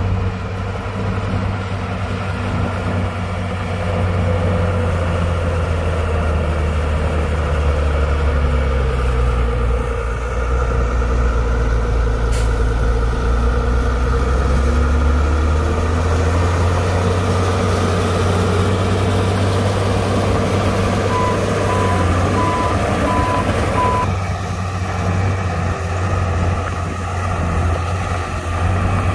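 Heavy diesel engine of an earthmoving machine running steadily under work, its pitch shifting somewhat in the middle. About three quarters of the way in, a reversing alarm beeps about five times.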